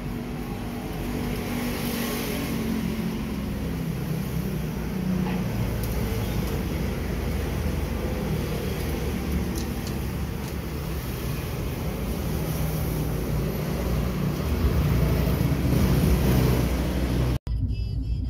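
Pickup truck's engine running, with road and traffic rumble around it, growing a little louder near the end. It cuts off suddenly at an edit and gives way to a quieter hum.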